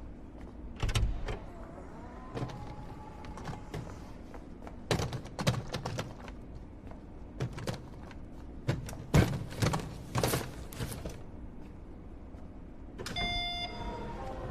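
Knocks and clicks on a car in several short clusters, with a car's electric window motor running briefly. A short ringing tone sounds near the end.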